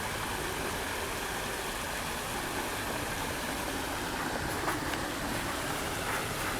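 Small waterfall rushing steadily, water pouring over a drop into a creek. A couple of faint clicks about two thirds of the way in.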